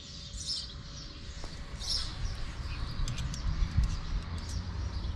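Small birds chirping in short bursts, over a steady low rumble with a few faint clicks and a knock a little before four seconds in.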